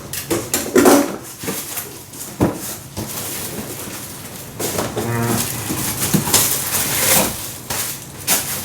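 Cardboard box and packing being opened and handled: rustling, scraping and a run of knocks and clicks, with a short squeak about five seconds in.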